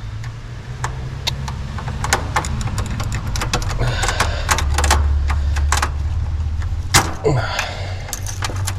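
Irregular clicks and light knocks of wire connectors and plastic plugs being worked loose from a heat pump's defrost control board, with a sharper click about 7 s in. A steady low hum runs underneath.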